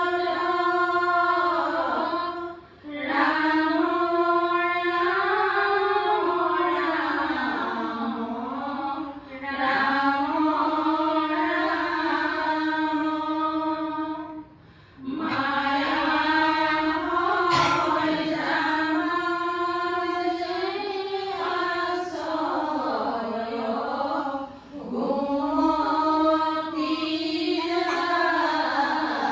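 Female voices chanting a slow devotional song in long, drawn-out phrases, with short pauses for breath between them.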